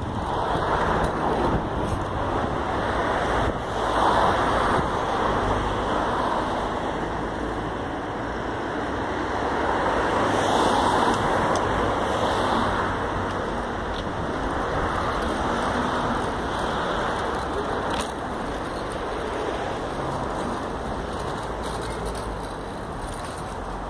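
Three-wheeled carving scooter's wheels rolling on rough asphalt: a steady rushing noise that swells and fades as the rider carves back and forth.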